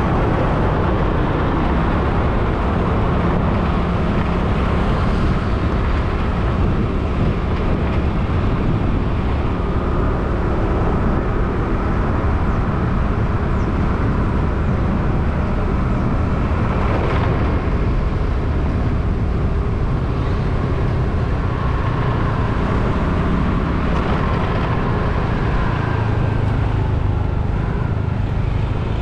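Steady rush of wind and engine and road noise from a two-wheeler riding along a road, heard from a camera mounted on it.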